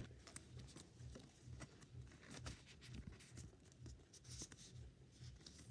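Near silence with faint, scattered light clicks and scratches of Pokémon trading cards being handled.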